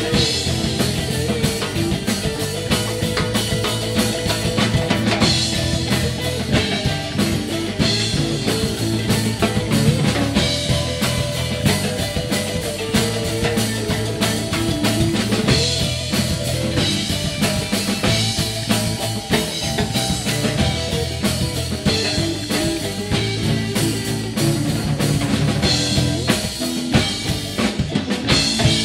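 Live band playing: guitar and mandolin over a busy drum kit.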